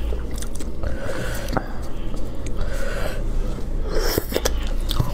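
Close-up wet chewing and biting of spicy braised rabbit head, with smacking and many small clicks as the meat is torn from the bone by hand.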